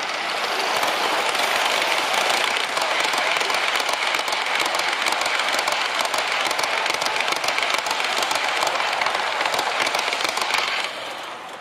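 Large-scale model train cars running past at close range, their wheels rattling and clicking over the brass track. The clatter swells in, holds steady, then drops away near the end as the train passes.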